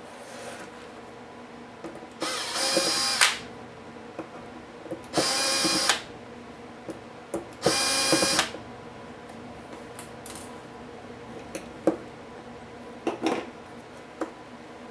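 A small handheld power screwdriver runs in three bursts of about a second each, driving out laptop screws during disassembly. A few short clicks follow near the end.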